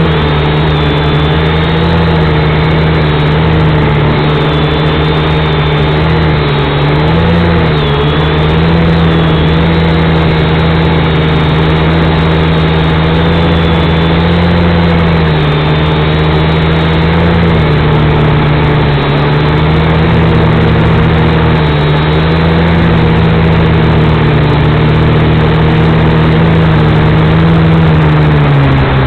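V222 mini quadcopter's small electric motors and propellers whining steadily, the pitch wavering up and down as the throttle changes in flight.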